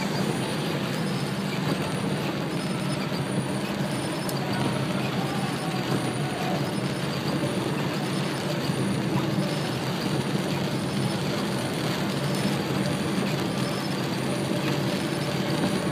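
Steady road noise heard from inside a moving car in heavy rain: a low, even rumble of engine and tyres on the wet road under a hiss of rain and spray.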